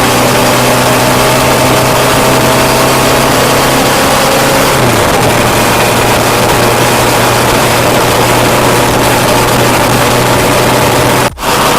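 Kawasaki Vulcan S 650's parallel-twin engine running loud through its stock exhaust, picked up by a mic right at the tailpipe. The note is steady, drops slightly in pitch about five seconds in, and cuts out for a moment near the end.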